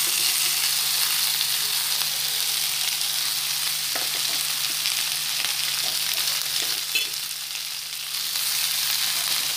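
Half-boiled ivy gourd pieces frying in hot coconut oil in a pan: a loud, steady sizzle, with a couple of faint clicks.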